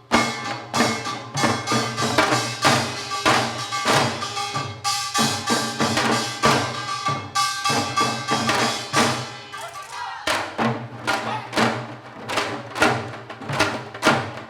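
Janggu, the Korean hourglass drums, played in seoljanggu: fast, dense strokes of stick and hand on the two drumheads, with a steady ringing tone beneath. About ten seconds in, the rhythm settles into evenly spaced strikes, about two a second.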